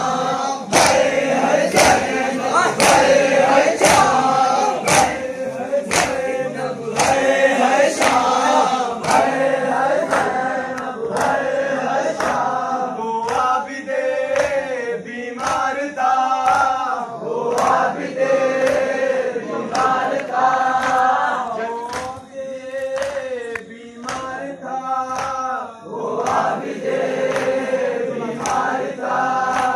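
Group of men chanting a Shia noha lament together, with sharp, rhythmic chest-beating (matam) about once a second keeping the beat.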